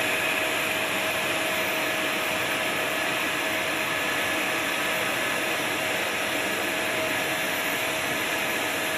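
Aircraft turbine power unit running steadily on the flight line: an even rushing noise with a steady mid-pitched whine.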